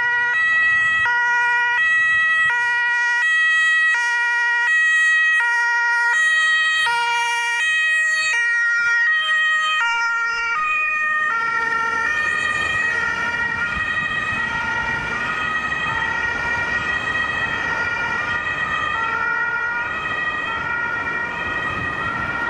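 German two-tone emergency siren on a Red Cross Mercedes ambulance van, alternating between two pitches about every 0.7 seconds. About halfway through the siren drops in pitch and engine and tyre noise come up as the van passes and drives away. A steady high tone sounds underneath.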